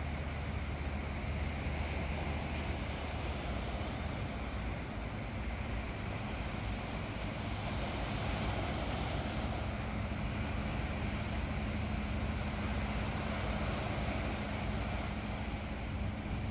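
Steady outdoor ambient noise with a continuous low hum underneath and no single sound standing out.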